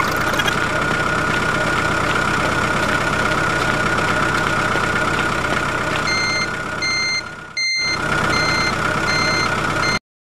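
Tractor engine running steadily, with a reversing alarm beeping about one and a half times a second from about six seconds in; both cut off abruptly near the end.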